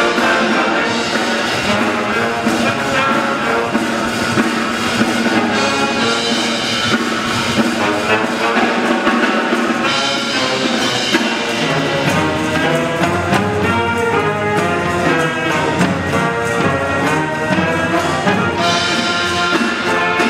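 Military band playing live: brass and saxophones over a bass drum. The low notes grow fuller about halfway through.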